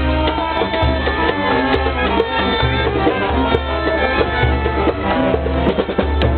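Loud, upbeat music with drums and percussion over a pulsing bass line, with many notes sounding at once.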